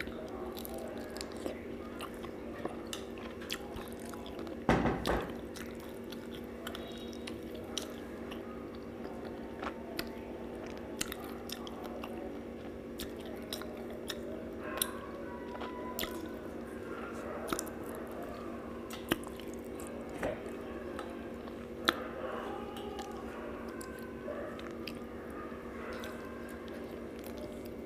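A person eating rice and curry by hand from a steel plate: close-up chewing and wet mouth clicks, with fingers scraping and wiping food off the plate. A steady low hum runs underneath, and there is one louder knock about five seconds in.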